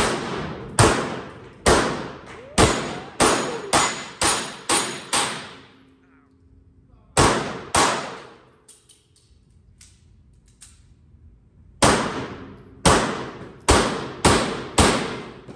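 Pistol gunfire in three strings: about nine quick shots, then two more after a pause of about two seconds, then five more after a longer pause, each shot sharp with a ringing decay.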